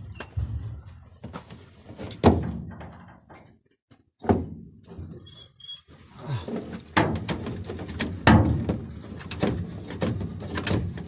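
Irregular knocks and thumps as a man shifts and works in the cramped space under a combine harvester, bumping its sheet-metal panels. A few short high squeaks come about five seconds in.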